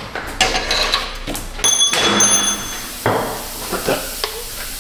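Metal hand tools clanking and scraping against the rusted exhaust pipe flange and bolts under the car. There is a string of knocks and grating, with one short metallic ring a little under two seconds in.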